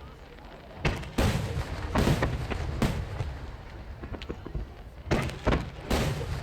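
Large aerial firework shells (12-inch shakudama) bursting one after another with dry, sharp cracks, each followed by a rolling echo. About four bursts come in the first half and three more near the end.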